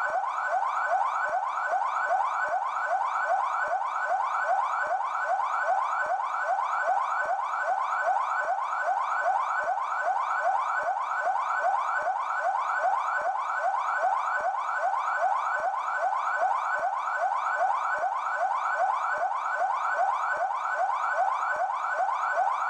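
Police car siren on its yelp setting, the tone used by São Paulo's Military Police (PMESP). It sounds as a fast, unbroken run of rising sweeps, about three a second, at a steady level.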